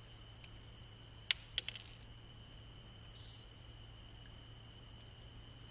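Quiet background with a steady low hum and a faint high whine, and a couple of small sharp clicks about a second and a half in, from a crimp butt connector being fitted onto a stripped wire.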